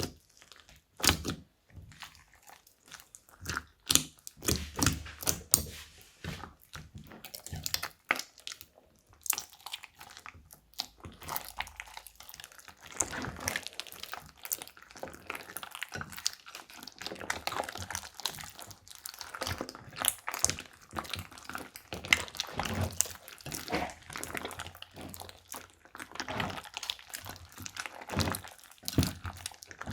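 Slime being squished and kneaded by hand, giving a dense, irregular run of sticky clicks and crackles.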